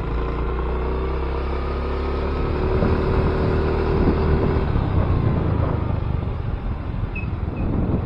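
Motor scooter engine running at a steady speed under a rider, with wind rumbling on the action camera's microphone; the engine's note fades out about halfway through.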